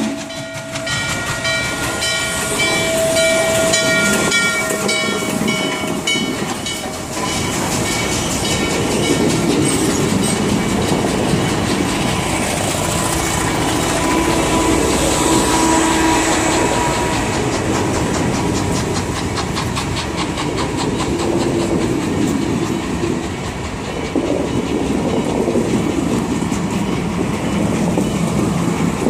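Norfolk & Western J-class 611 steam locomotive passing close by at a grade crossing, then its passenger cars rolling past with a steady rumble and wheels clacking over rail joints. For about the first seven seconds a bell rings in quick, even strokes over the train.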